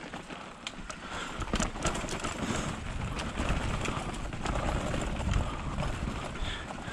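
Mountain bike riding over a rough dirt trail: tyres crunching on gravel and the bike rattling with many small clicks and knocks, over a low wind rumble on the microphone that grows louder in the middle.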